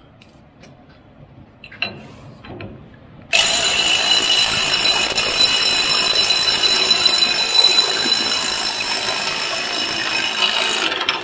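Snap-on CT761 3/8-inch cordless impact wrench hammering hard and steadily on a tightly torqued nut, trying to break it loose. It starts suddenly about three seconds in, after a few handling clicks, runs for about eight seconds and cuts off abruptly near the end.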